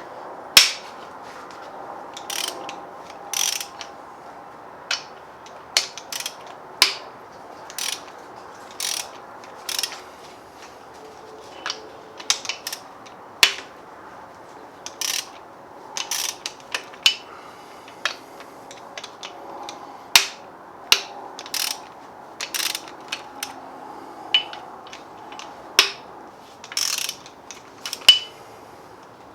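Hand ratchet wrench clicking in short runs, with sharp metallic clinks between them, as the cylinder head bolts come out of a Gen 4 Hemi V8.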